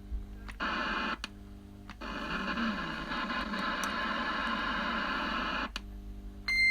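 CRT SS6900N CB radio's speaker giving out hiss and static from a carrier, cutting in and out with sharp clicks and a low buzz in the gaps, then a longer stretch of steady hiss. A short high roger beep tone starts just at the end.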